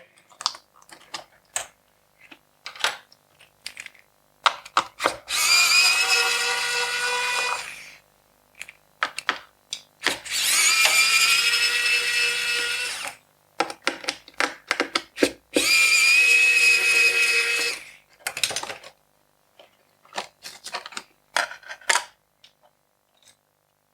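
Small electric screwdriver running three times, each for two to three seconds with a steady whine, backing out the screws that hold the laptop's keyboard compartment. Light clicks and handling knocks come in between.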